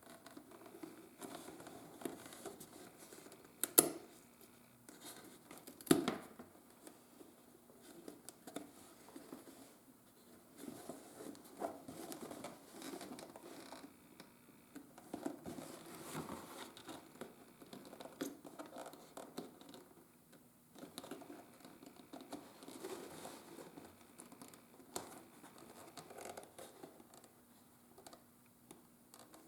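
Handwork sounds from leather being worked at a bench: intermittent rustling, scraping and scratching, with two sharp knocks about four and six seconds in.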